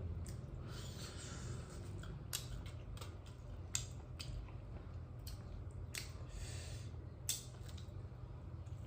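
Faint eating sounds: a person chewing and handling food, with a few sharp clicks, over a low steady hum.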